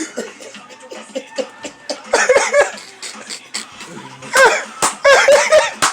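People laughing in short bursts, picking up toward the end.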